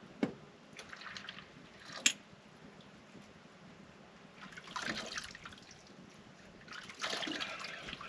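Water from a steel kettle splashing into a wooden bowl and being splashed by hand, in two splashy stretches about five and seven seconds in, after a couple of light knocks in the first two seconds.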